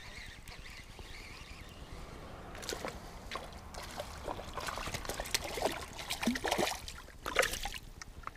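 A hooked perch thrashing and splashing at the surface in shallow water at the shore. Irregular splashes start a few seconds in and stop when the fish is lifted out near the end.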